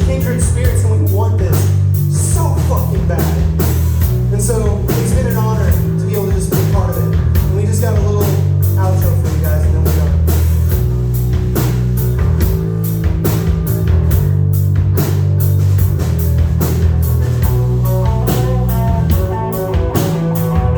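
Live rock band playing: a drum kit keeps a steady beat under bass and electric guitar.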